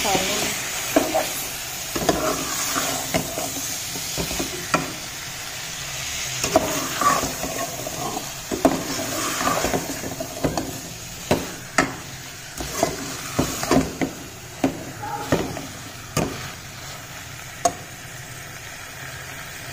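Metal spoon stirring cubed potatoes through masala in a metal pot, scraping and knocking against the pot's sides at irregular intervals, over a steady sizzle of frying.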